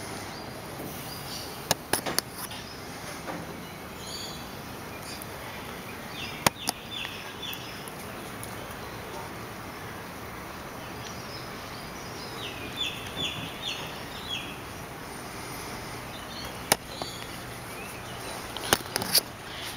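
Blue-and-gold macaw's beak knocking and biting at the camera: sharp clicks, singly and in small clusters. Twice a quick run of four or five short, high, falling chirps from a bird is heard, about six seconds in and again about twelve seconds in.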